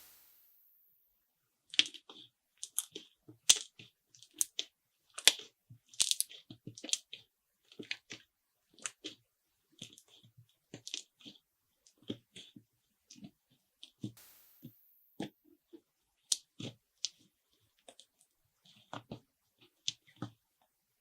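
Homemade slime being squeezed and poked by hand, making irregular sticky pops and crackles about two a second, starting about two seconds in.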